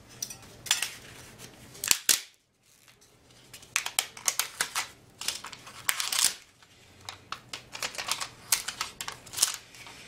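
Plastic shell of a 3.5-inch floppy disk being pried and snapped apart by hand: a run of sharp clicks and cracks, with a short quiet gap about two seconds in.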